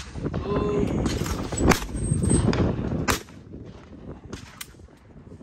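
Two shotgun shots at clay targets about a second and a half apart, the first the louder, followed by a couple of fainter shots.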